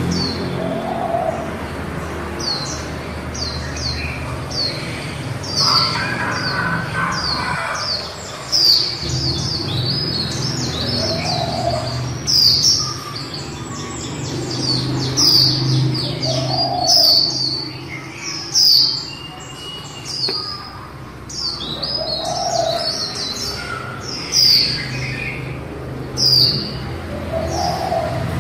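Female white-eye (vành khuyên) giving its 'líu' chatter: quick runs of short, high, down-slurred chirps, the call keepers play to stir male white-eyes into singing. A steady low hum runs underneath.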